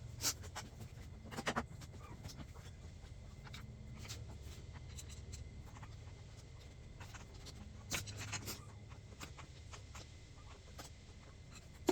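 Scattered light clicks, taps and clatter of hand work on car parts, with a cluster of louder knocks about 8 seconds in, over a low steady hum.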